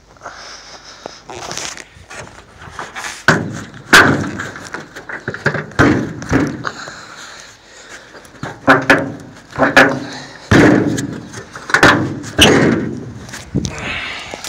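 A run of loud metal clunks and bangs, about ten of them, some ringing briefly, as the hood of a 1985 Chevy C6000 medium-duty truck is unlatched and raised.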